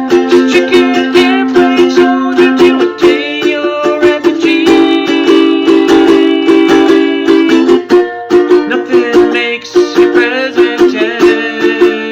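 Music: a string instrument strummed in quick, steady strokes over sustained chords, playing a song.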